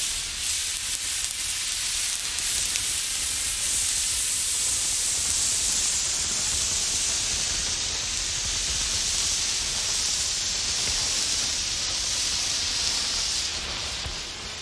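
A burning emergency road flare hissing steadily, dipping in loudness near the end as it is moved.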